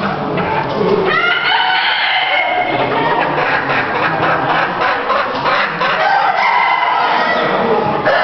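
Many chickens calling at once: roosters crowing over one another, with dense clucking between the crows.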